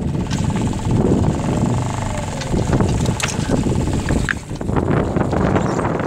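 Wind gusting on the microphone over choppy harbour water, with a couple of light knocks partway through.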